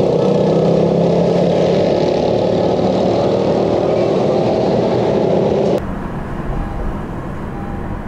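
Loud road traffic with vehicles running. About six seconds in it cuts off abruptly to a quieter low hum.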